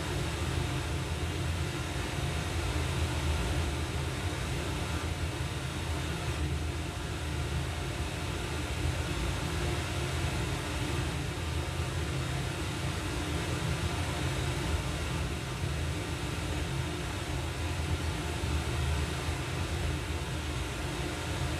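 Zebronics Juke Bar 9700 Dolby Atmos soundbar and its subwoofer playing a Dolby Atmos test clip, heard in the room: a steady, dense rumble with strong deep bass and a hiss on top, like a passing vehicle or aircraft effect.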